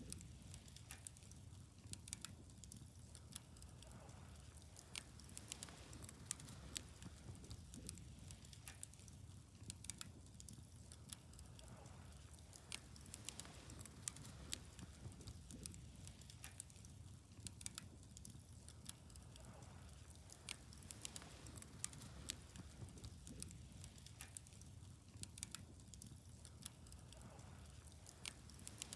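Wood fire burning, with irregular sharp crackles and pops over a soft low rumble.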